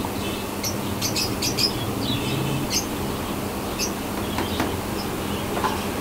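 A flock of caged budgerigars chirping and chattering, short high chirps scattered irregularly over a steady low hum.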